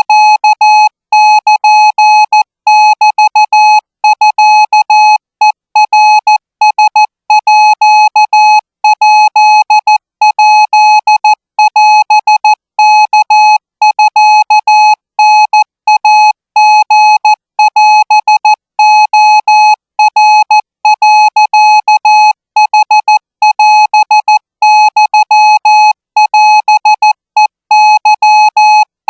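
Morse code practice tone keyed in short and long beeps (dots and dashes) sending Thai Morse at about 20 words per minute: one mid-pitched beep, steady in pitch, with no pauses longer than a letter or word gap.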